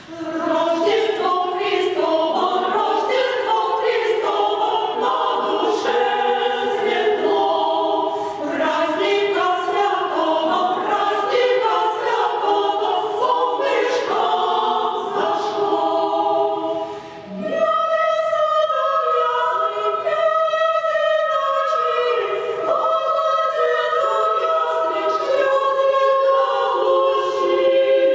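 Women's choir of sacred music singing unaccompanied in several parts. The singing begins at the start, breaks for a short breath about two-thirds through, then resumes with long held chords.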